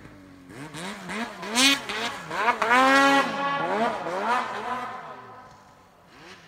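Two-stroke mountain snowmobile engine revving hard in deep snow, its pitch rising and falling again and again as the throttle is worked. It is loudest mid-way and fades out near the end as the machine moves off.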